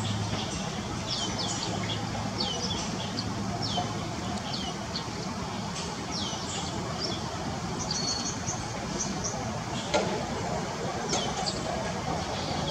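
Small birds chirping: many short, quick, high chirps sliding downward, repeated over a steady background hiss. A single sharp knock about ten seconds in.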